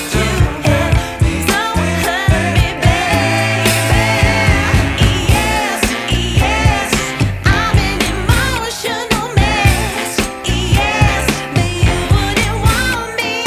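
Background pop song, a singing voice over a steady beat.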